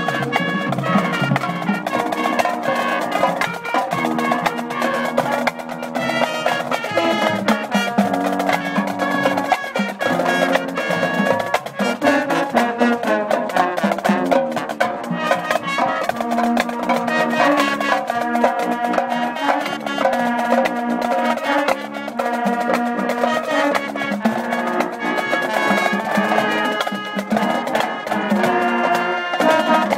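High school marching band playing live: a brass melody over steady drumline percussion, continuing without a break.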